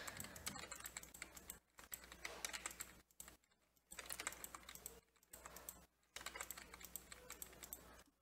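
Computer keyboard being typed on in quick bursts of keystrokes, with short pauses between the bursts.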